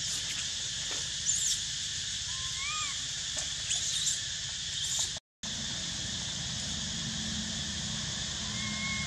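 Outdoor ambience: a steady high hiss with a few faint clicks and a short rising-and-falling chirp about two and a half seconds in. The sound drops out for a moment about five seconds in. After that a low steady hum runs under the hiss, with another faint chirp near the end.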